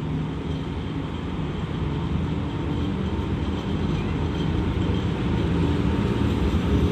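ET22 six-axle electric freight locomotive hauling a train of covered wagons along the track, its steady rumble growing gradually louder as it draws near.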